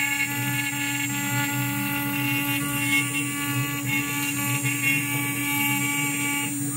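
DIY CNC router's spindle running with a steady whine as the machine pockets a wooden board, the bit cutting wood while the gantry carries it along the toolpath.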